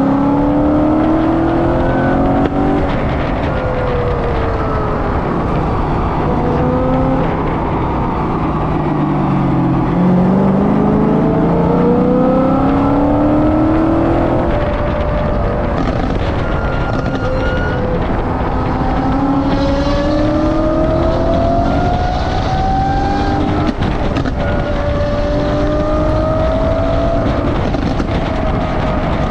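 Straight-piped Lamborghini Aventador Ultimae's naturally aspirated V12 running hard on a Valvetronic exhaust, its pitch climbing through the revs and dropping back at each shift, with stretches where it falls off. Heavy wind and road noise lie under it from the car-mounted camera.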